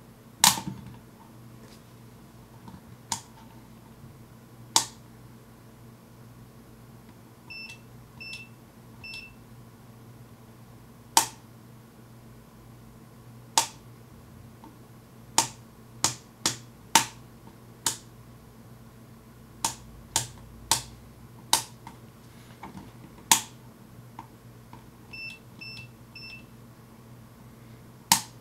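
Tekpower TP2844R digital multimeter's rotary range selector and front buttons clicking, one sharp click at a time with a second or more between most of them. Twice the meter's beeper gives three short beeps in quick succession.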